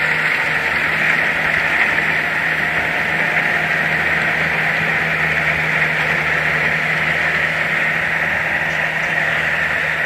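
Kubota DC60 combine harvester running steadily under load as it cuts and threshes rice: an even diesel engine hum under a constant whirring hiss from the threshing and cutting gear.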